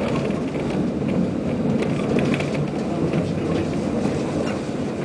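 Konstal 105Na two-car tram set running, heard from inside the car: a steady rumble of wheels on rails and motors, with faint light clicks and rattles.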